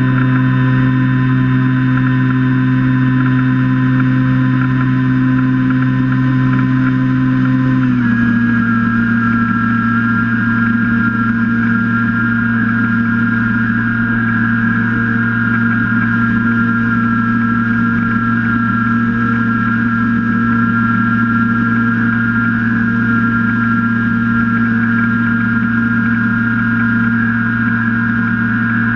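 Skywalker X8 flying wing's motor and pusher propeller droning steadily in flight, picked up by its onboard camera, over a low rush of wind. About eight seconds in, the pitch steps down slightly and then holds steady.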